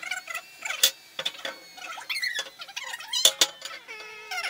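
Steel square tubing being handled and fitted on a welding cart frame: scattered metal knocks and short scraping squeaks.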